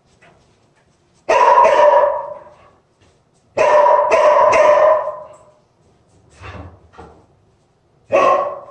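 Dog barking three times, each bark long and drawn out, a few seconds apart, the last near the end.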